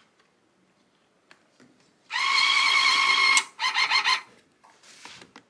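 Coin-operated massage chair's payment unit whirring loudly for about a second after money is fed in, followed by a shorter stuttering whir.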